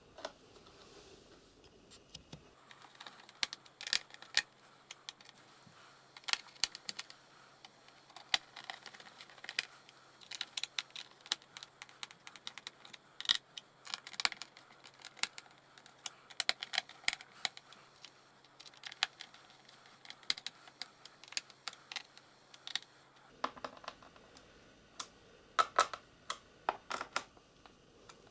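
Small screwdriver clicking and scraping on the screws of a Lenovo IdeaPad Flex laptop's plastic bottom case. The clicks come in an irregular run of short clusters.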